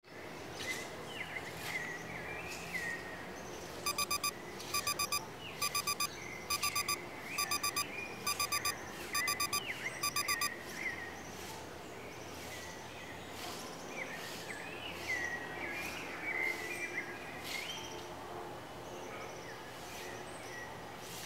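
Digital alarm beeping in tight groups of quick beeps, a little faster than one group a second, starting about four seconds in and stopping about ten seconds in. Birds chirp throughout.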